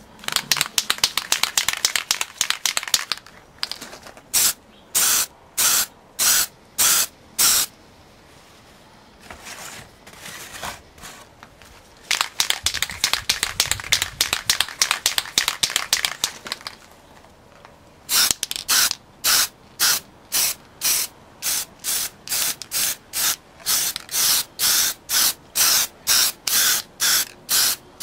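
Aerosol rattle can of primer filler (spray putty) hissing in many short bursts, about two a second, with two pauses of a few seconds between runs.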